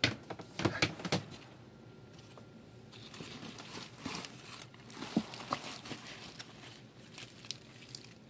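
Paper-pulp egg flats being handled in a plastic tub: a few sharp clicks and knocks in the first second or so, then irregular rustling and scraping as the cardboard is lifted and rubs against itself and the tub walls.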